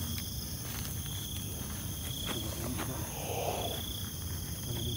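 Insects chirping: a short buzzy chirp repeating about once a second over a steady high-pitched insect drone. A brief rustle about three seconds in, with a few faint clicks.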